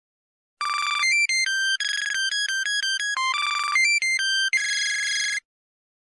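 Synthesized ringtone melody: a quick run of short, bright, buzzy electronic notes hopping between pitches. It starts about half a second in and stops about half a second before the end.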